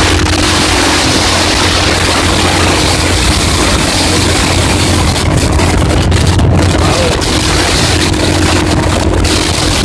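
Wind rushing over the microphone of a motorcycle riding at speed, with the bike's engine running steadily underneath.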